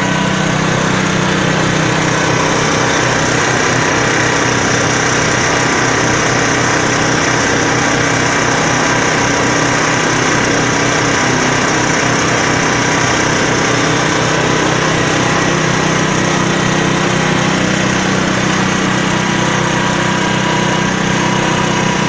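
Small diesel engine of a mobile concrete mixer running steadily, turning the mixing drum with a load of mix inside.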